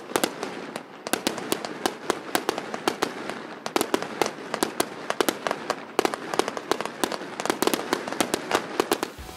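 Aerial fireworks crackling: a rapid, irregular run of sharp pops and crackles, several a second, throughout.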